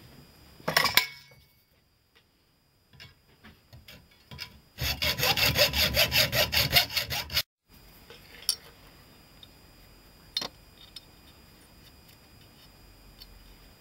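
Quick, even back-and-forth rubbing strokes, about four or five a second for nearly three seconds, on a small gun part held at a bench vise, cutting off abruptly. A brief clatter comes about a second in, and a few light clicks of small metal parts being handled follow the strokes.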